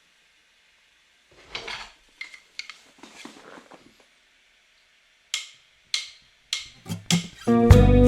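Rustling and scraping of small objects being handled, then a run of sharp taps or clicks, before guitar music starts near the end.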